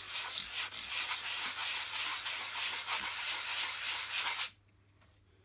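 Hand sanding block rubbed rapidly over the edge of a block of Bastion XPF foam, a steady scratchy hiss that smooths off a ridge. It stops abruptly about four and a half seconds in.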